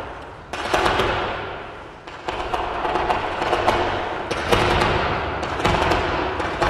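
Figure skating program music played loud over an arena sound system, with heavy percussive hits every second or two, each followed by a fading swell.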